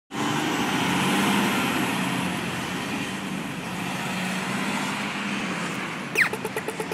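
Road traffic with a vehicle engine running. About six seconds in, an Australian pedestrian crossing's audio-tactile signal gives its falling electronic 'zap' and starts rapid ticking, the signal that the walk light is on.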